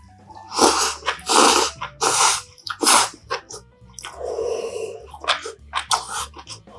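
Close-up eating sounds of dumpling and mushroom hotpot: four loud slurps roughly one every three quarters of a second, a longer slurp about four seconds in, then small wet chewing clicks.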